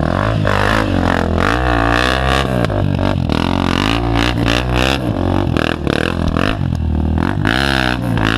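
Off-road motorcycle engines revving, their pitch rising and falling again and again about once a second over a steady low engine drone.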